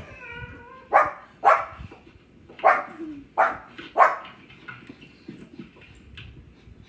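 Pug barking: five short, sharp barks between about one and four seconds in, then quieter.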